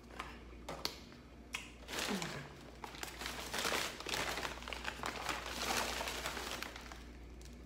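A paper takeout bag rustling and crinkling as it is handled, after a few light clicks at the start.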